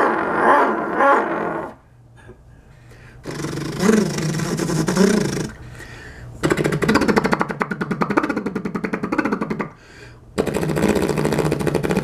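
A man imitating an engine with his throat and mouth while pinching his nose: a buzzy, rattling noise in four runs of one to three seconds with short pauses between them, the second rising and falling in pitch.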